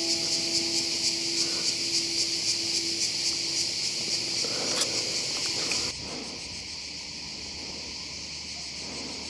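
A dense chorus of insects chirring high and steady, pulsing a few times a second; it turns quieter about six seconds in. A faint low hum fades out in the first three seconds.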